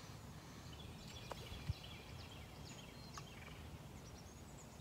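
Faint, scattered bird chirps over a low, even background rumble of lakeside ambience, with one soft thump about a second and a half in.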